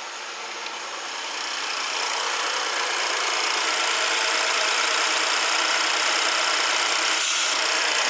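BMW N55 turbocharged straight-six idling, heard close up in the engine bay, growing louder over the first couple of seconds as the microphone nears it and then holding steady. A short scrape near the end as a hand works at the plastic oil filler cap.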